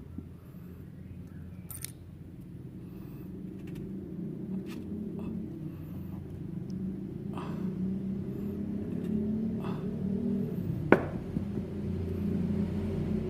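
Low steady mechanical rumble that slowly grows louder, with a few faint ticks and one sharp click about eleven seconds in.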